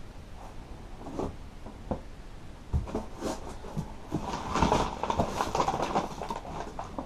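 Crinkling and rustling of packing paper and cardboard as hands rummage inside a shipping box, with scattered light knocks. The handling gets busier about four seconds in.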